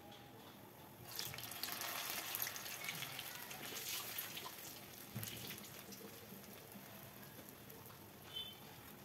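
Urad dal vada batter frying in hot oil in a pan. A loud sizzle and crackle swells about a second in, as a fresh vada goes into the oil, and settles into a quieter steady fizz after a few seconds. A short high squeak comes near the end.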